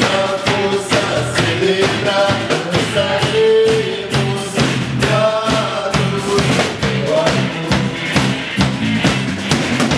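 Live band music: a woman and a man singing into microphones over electric guitar and a drum kit keeping a steady beat.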